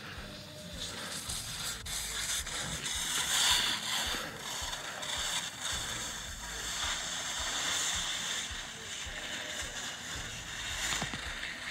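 Gusty wind buffeting the phone's microphone, a rushing hiss that swells and fades with irregular low rumbling thumps.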